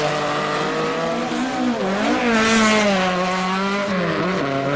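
Car engine running at high revs as it drives off, its pitch dipping and rising again twice, with a brief noisy rush of hiss near the middle.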